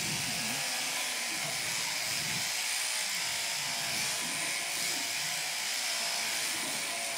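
Machine sheep-shearing handpiece on an overhead drive arm, its cutter sliding back and forth over the comb, running steadily with a continuous buzz as it shears through a lamb's fleece.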